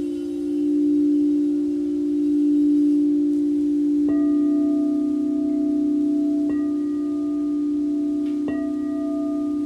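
Frosted quartz crystal singing bowls: a low bowl holds a steady ringing tone while a higher-pitched bowl is struck about four seconds in and twice more, each strike ringing on over the low tone.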